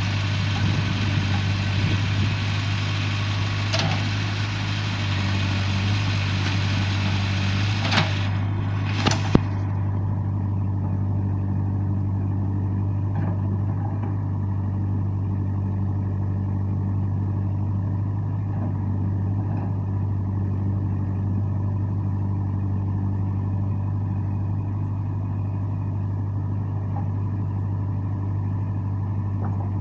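JCB 3CX backhoe loader's diesel engine running steadily. Two sharp knocks come about eight and nine seconds in, and a high hissing noise drops away just after the second one.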